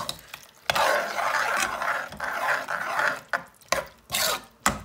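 A long metal spoon stirring soft, wet cooked-down onions in an aluminium pot, scraping the pot. A steady churning at first, then separate quick strokes in the second half.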